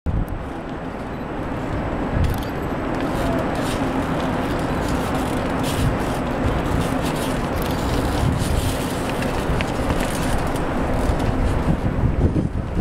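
Steady outdoor crowd murmur over low city rumble, with scattered faint clicks and scrapes.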